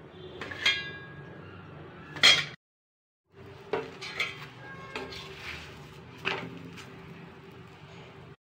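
Steel cookware and a steel spatula clinking: several sharp metal clinks with a brief ring, the loudest about two seconds in, then more taps and knocks over a steady low hum. The sound drops out completely for under a second near three seconds in.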